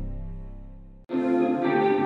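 Background music: a slow ambient piece of sustained low tones fades out, and about a second in a different music track starts abruptly.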